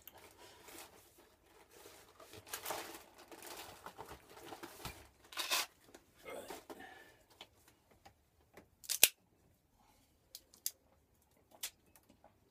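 Cigar being handled and its cap clipped with a cigar cutter: scratchy rustling, then one sharp snap about nine seconds in and a few faint ticks.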